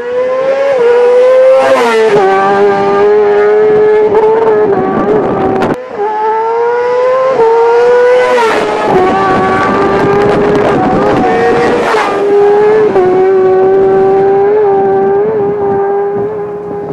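Road-racing motorcycle engines at high revs, passing at speed. The high engine note climbs and then drops twice, then holds fairly steady with small blips.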